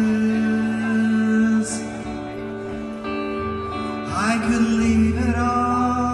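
A man singing softly in long held notes over a clean electric guitar, a slow solo post-rock song. A new sung phrase slides up into a held note about four seconds in.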